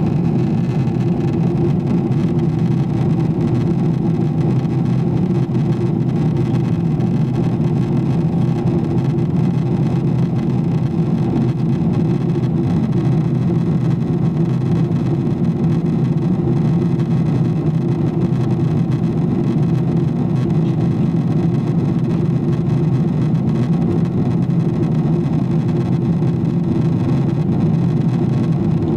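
Steady cabin noise inside a Boeing 777-300ER in flight: a low, even drone of its GE90-115B engines and the airflow over the fuselage.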